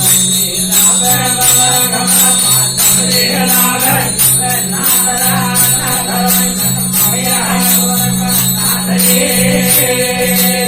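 Instrumental music of a Rajasthani desi veena bhajan: a steady jingling percussion beat over low alternating bass notes and a melody line, with no singing.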